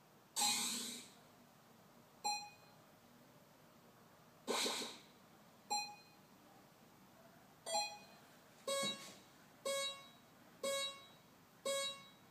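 Retro 8-bit style synthesized game sound effects made with SFXR: a series of short electronic blips and bleeps, with two longer noisy bursts, one right at the start and one about four and a half seconds in. Near the end four matching pitched blips come about a second apart.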